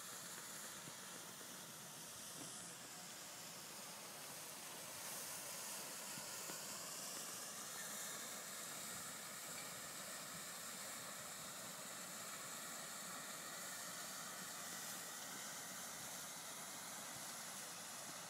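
Faint, steady hiss with no distinct events.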